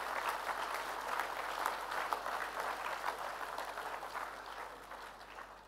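Audience applauding, the clapping dying away toward the end.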